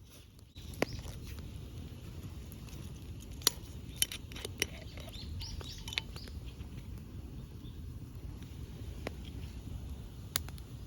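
Wood bonfire burning, with a steady low rustle and irregular sharp crackles and pops from the burning wood.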